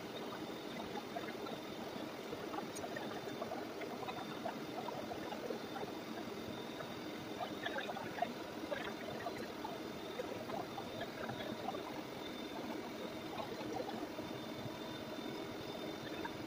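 Lucas model 41 horizontal boring mill running in its high speed range, its cutter working an aluminum part: a steady machine noise with many small crackles and a faint high steady tone.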